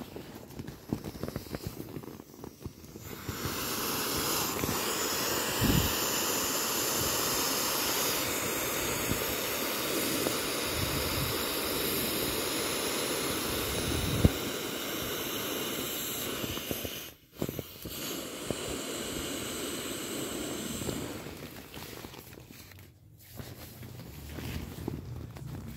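Air hissing steadily out of the single tail valve of a matte-vinyl inflatable toy as it is squeezed flat. The hiss starts about three seconds in, breaks off briefly, and dies away near the end, with the vinyl rubbing and clicking under the hands around it.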